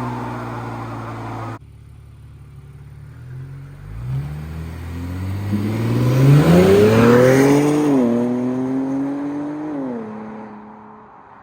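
Car engine accelerating. Its pitch climbs steadily for several seconds, drops once as it shifts up, and then holds and fades away. Near the start a different engine note breaks off abruptly.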